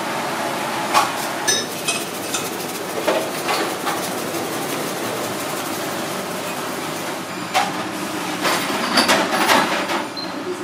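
Abalone shells and a metal tray clinking and knocking as the shellfish are set out on a foil-lined tray, with a cluster of clinks in the second half, over a steady background noise.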